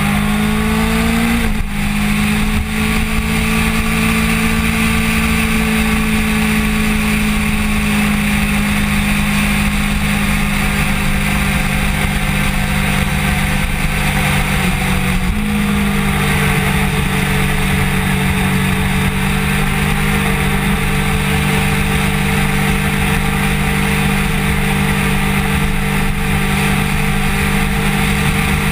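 Kawasaki Ninja sport bike engine running on the road: the revs rise for the first second or so, dip briefly, then settle into a steady cruise, with a small step down in pitch about halfway through. A steady low rush of wind on the bike-mounted camera runs under it.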